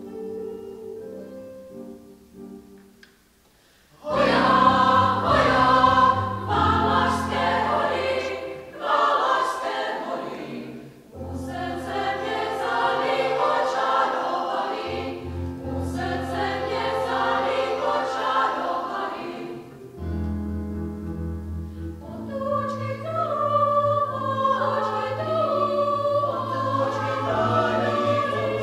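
A mixed choir of women's and men's voices singing in a church. A soft held chord fades away, and after a short pause the full choir comes in loudly about four seconds in and sings on in phrases.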